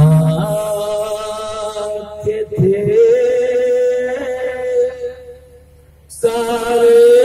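A man's voice chanting a naat unaccompanied, drawing out long held notes. He breaks off for about a second near the end, then starts another long held note.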